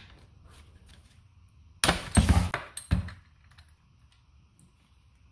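Socket ratchet clicking and rattling as it loosens a motorcycle's oil drain bolt, with a loud burst of clicks about two seconds in, then only faint ticks as the bolt is turned by hand.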